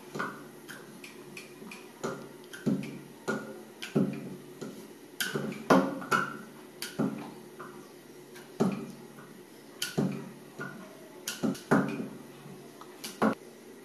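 Wooden rolling pin rolling out paratha dough on a round wooden chakla, the pin and board clacking and knocking irregularly, about one or two knocks a second.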